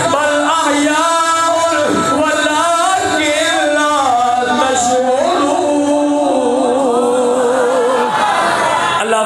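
A man's solo voice chanting melodically into a microphone, holding long notes with wavering ornaments rather than speaking.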